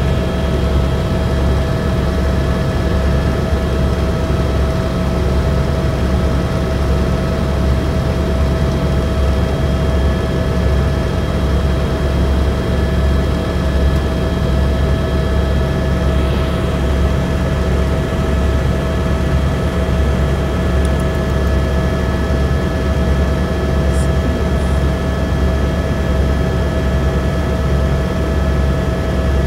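Helicopter in flight, heard from inside the cabin: a steady, loud drone of engine and rotor with a constant high turbine whine over it.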